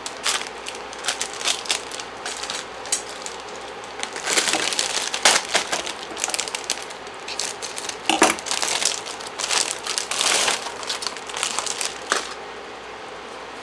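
Plastic bags of frozen sugar snap peas crinkling as they are handled and emptied, with the frozen pods clattering into the pan in a busy run of clicks and rustles. It stops about twelve seconds in, leaving a faint steady hiss.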